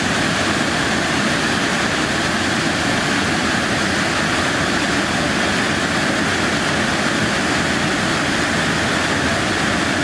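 Waterfall pouring onto rocks: a steady, unbroken rush of falling water.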